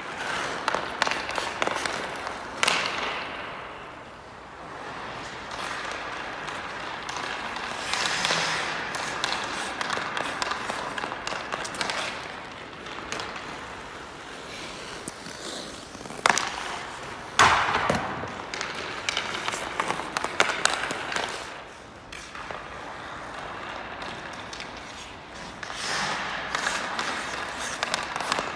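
Ice hockey skates carving and scraping on the ice, with a hockey stick clacking on pucks and several sharp cracks of pucks being shot, the loudest about two-thirds of the way through.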